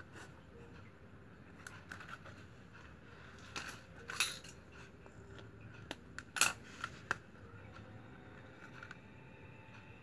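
Handling sounds from plastic strapping and a woven strap fan with a wooden handle: a few short, sharp clicks and crinkles, the loudest about four and six seconds in.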